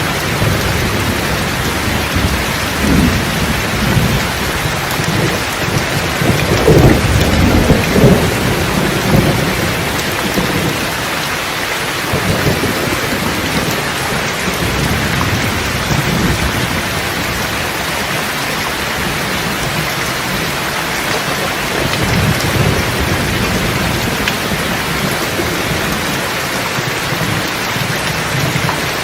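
Steady heavy rain falling on a surface, with rolling thunder rumbling low, loudest about seven to eight seconds in, and a fainter rumble a little past twenty seconds.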